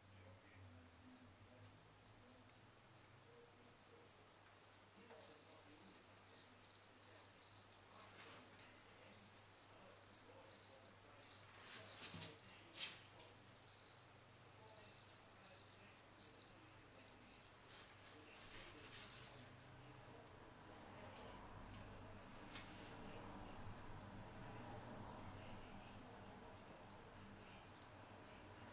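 A cricket chirping steadily, a high-pitched chirp repeated several times a second, stopping twice for a moment about two-thirds of the way through.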